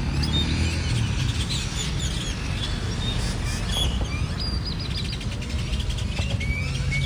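Several great-tailed grackles calling: a jumble of sharp whistles, rising and falling squeals and rattling chirps, over a steady low rumble.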